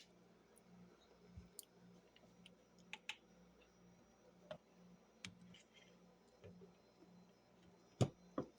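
Faint, scattered clicks and taps, about one or two a second, with two louder knocks near the end, over a faint steady low hum.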